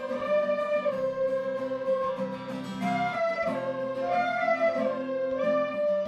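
Instrumental background music: a slow melody of held notes stepping up and down over a steady, repeating lower accompaniment.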